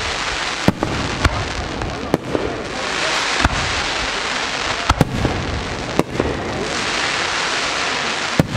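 Fireworks display: aerial shells going off in a string of sharp bangs, about one a second with one quick pair near the middle, over a continuous hiss.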